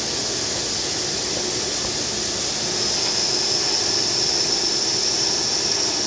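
Diamond CNC tool spinning on a granite CNC router spindle while an abrasive dressing stick is pressed against it and swept along, mostly dry: a steady grinding hiss with a high whine. The whine grows stronger about three seconds in as more pressure is applied to dress the tool.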